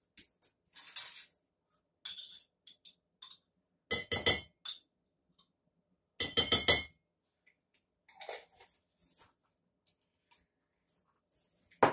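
A spoon clinking and scraping against a jar and bowl while measuring out minced garlic: short clusters of quick, sharp clinks, loudest a little past the middle, then a single knock at the very end.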